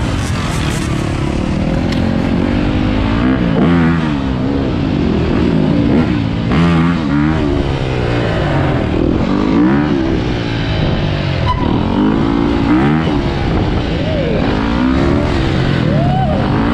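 Several dirt bike and sport quad engines revving up and down as the group rides. Their pitch rises and falls over and over, several engines at once.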